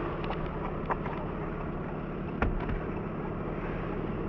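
Vehicle engine idling steadily, with a couple of sharp knocks about a second in and about halfway through.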